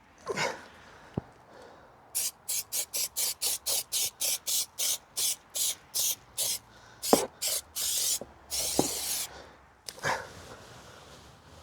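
Spray adhesive hissing out in many short bursts, about three a second, then two longer sprays near the end, as carpet is being glued to a van ceiling. A few knocks and rubs from handling come between the bursts.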